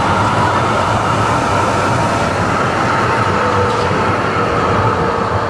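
Oslo SL95 articulated tram running past close by on its rails: a steady rumble with a thin, steady whine on top.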